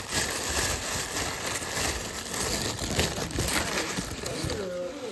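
White tissue paper crinkling and rustling as hands rummage through it in a gift box.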